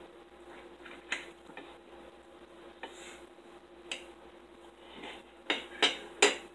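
Metal forks clinking and scraping against plates during a meal: a few light clinks, then three sharper ones in quick succession near the end, over a faint steady hum.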